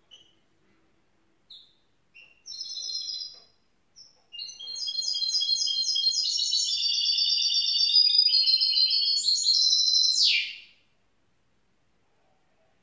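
Young goldfinch mule (goldfinch hybrid) singing: a few short high chirps, then a fast, continuous twittering song of about six seconds that ends in a quick downward sweep.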